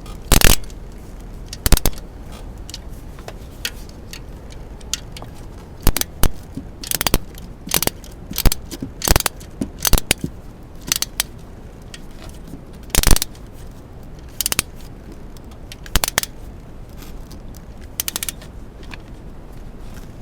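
Small hand ratchet and wrench tightening an ignition coil's mounting bolts: irregular metallic clicks and clinks, some in quick short runs of ratchet clicks.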